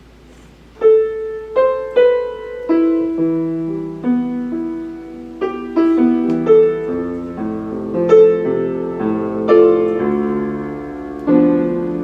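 Solo piano starting about a second in, playing a slow melody over sustained chords. Each note is struck separately and rings on.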